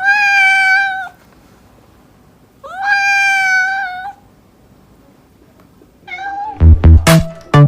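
A cat meowing: two long meows, each rising at the start and then held steady, and a shorter one about six seconds in. Loud electronic music with a heavy beat cuts in near the end.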